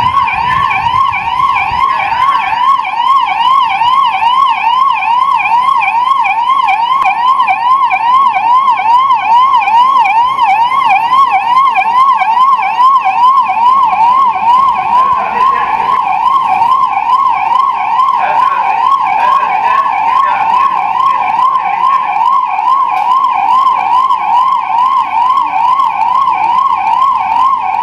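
Ambulance siren sounding continuously in a fast yelp, its loud tone sweeping up and down about three times a second.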